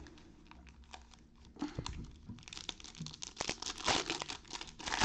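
Foil wrapper of a trading-card pack crinkling and tearing as it is handled and ripped open: a few light ticks at first, then dense crackling from about two seconds in.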